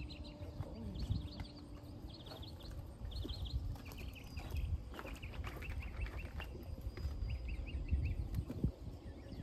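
Small birds chirping in quick repeated trills over a low background rumble, with a few knocks of a horse's hooves shifting on a concrete pad.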